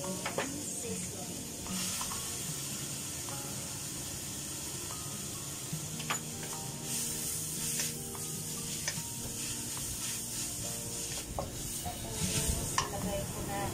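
Aromatics frying in hot oil in a stainless-steel wok, a steady sizzle, while a wooden spatula stirs and scrapes, knocking against the metal with scattered sharp clicks.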